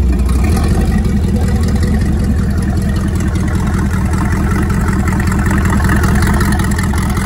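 Freshly rebuilt Crusader 454 big-block V8 marine engine running steadily just after starting, through open wet exhaust outlets with cooling water splashing out of them.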